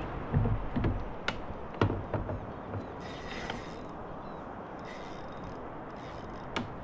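Fishing gear handled in a kayak: a few dull thumps and sharp clicks in the first two seconds, then a spinning reel's mechanism whirring in two short spells.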